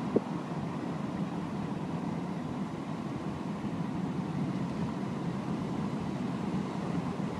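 Steady road and engine noise heard from inside a moving car, with a faint steady hum and a single short click just after the start.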